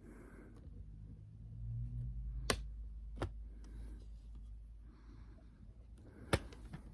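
Handling noise from a plastic CD case: faint rubbing and rustling with a few sharp clicks.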